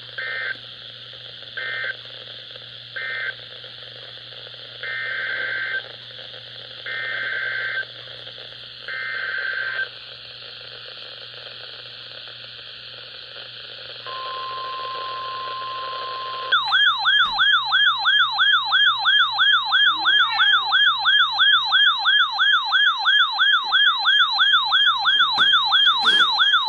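Emergency Alert System data tones over radio static: three short bursts of warbling data tone, then three longer bursts about a second each, marking the end of one flood warning and the headers of the next. About 14 seconds in a steady warning alarm tone starts, and a few seconds later a loud siren-like warble takes over, sweeping up and down about three times a second.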